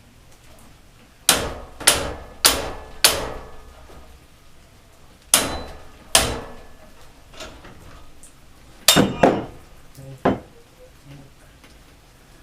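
Hammer striking metal in sharp blows with a brief ring after each: a quick run of four about half a second apart, then scattered single and paired strikes. The blows are knocking a part off a lawnmower go-kart.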